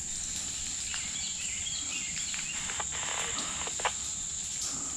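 Insects droning steadily in the woods, one unbroken high-pitched note, with a few short faint chirps over it and a brief sharp click a little before four seconds in.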